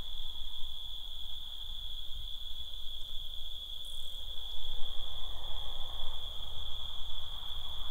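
Crickets chirring in one steady, unbroken high-pitched trill, over a low rumble on the microphone.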